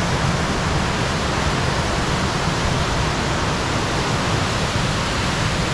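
Waterfall pouring close by: a steady, dense rush of falling water.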